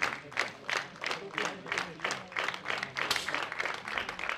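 Spectators clapping in unison, about three claps a second, quickening a little near the end, to build tension during a shooting final's last shot.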